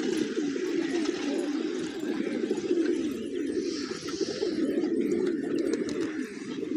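Several pigeons cooing at once, their low coos overlapping in a steady chorus.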